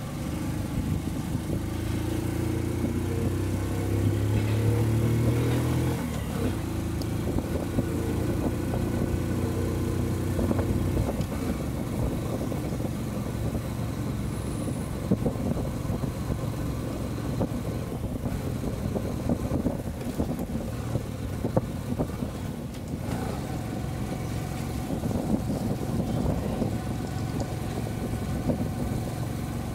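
Motorcycle engine running as the bike pulls away and rides along. Its note is clear and climbs at first, then turns into a steady rush of wind and road noise over the engine.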